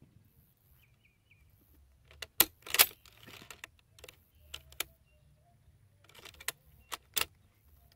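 Sharp metallic clicks and clacks from a Finnish Mosin-Nagant M28/30 bolt-action rifle being handled, the bolt being worked between shots. The two loudest come close together about two and a half seconds in, and lighter clicks follow near the middle and toward the end.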